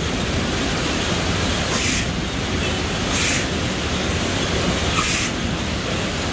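Automatic apple tray-packing machine running steadily, its roller conveyor carrying apples, with a short sharp hiss of air from its pneumatic suction heads three times, every second and a half or so.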